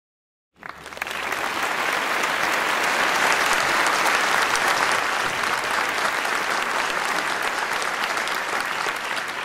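Audience applause, a dense steady clapping that comes in abruptly about half a second in and eases slightly near the end.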